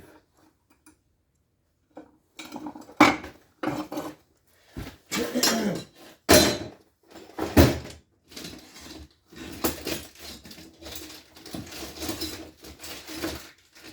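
Metal tools and parts being handled and set down on a workbench: a string of clinks and knocks starting about two seconds in, with the loudest hits near three, six and seven and a half seconds and quicker, lighter clatter later on.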